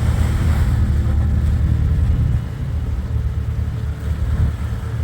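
Jeep Grand Cherokee engine pulling hard under throttle as it drives through a water hole, with a brief rush of water splashing at the start. The engine eases off about two seconds in.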